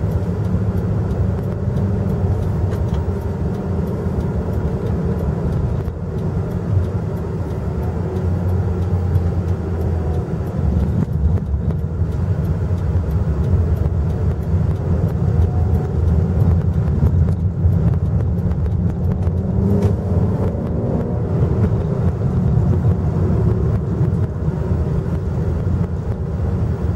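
Interior sound of a JAC T5 1.5 flex SUV on the move: steady engine and road rumble, with the engine note rising and falling now and then.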